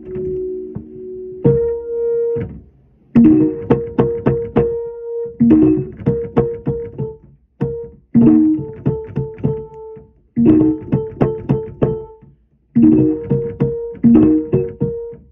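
Electric keyboard playing a tune in short runs of quick notes, several a second, with brief stops between the phrases.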